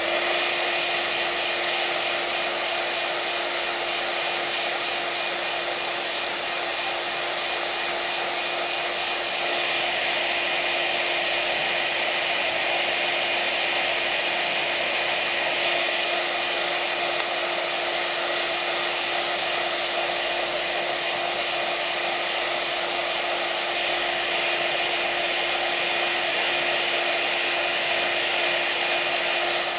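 Steady fan-like whirring with a constant humming tone, from a running iTeraCare handheld terahertz wand held over the body.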